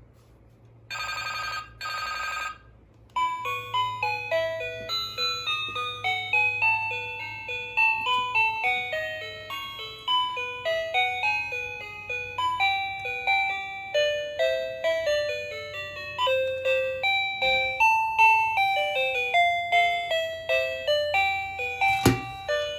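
Toy cordless phone's electronic ringtone: two short trilling rings, then the toy plays a tinny electronic melody of single beeping notes. A sharp click comes near the end.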